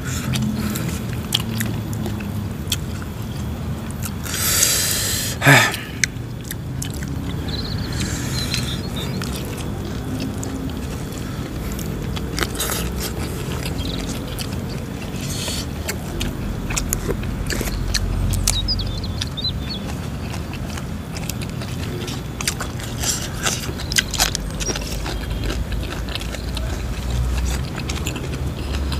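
Close-up eating sounds: crunching and chewing of food with scattered clicks and smacks, over a steady low rumble. A brief louder crunch or rustle comes about four to five seconds in.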